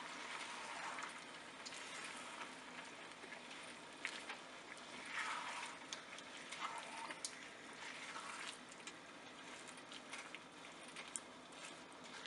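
Chicken pieces frying in a tomato-yogurt masala in a nonstick wok over high heat: a faint, steady sizzle, with a silicone spatula stirring and scraping through the pan now and then.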